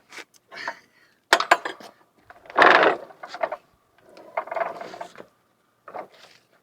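Irregular metallic clanks, knocks and short scrapes from the steel mower deck of a lawn tractor being shifted and rolled by hand, the loudest a brief scrape about two and a half seconds in.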